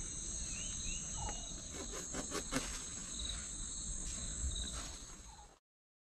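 Steady high-pitched chorus of crickets, with a few brief rustles around the middle. The sound cuts off abruptly about five and a half seconds in.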